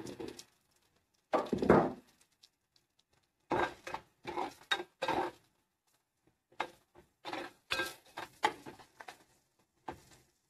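Spoon scraping and stirring the onion-tomato masala in a cooking pan: about ten short, irregular strokes with gaps between, the loudest about a second and a half in.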